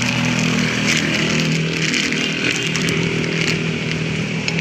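An engine running steadily at a constant speed, with a few faint light ticks over it.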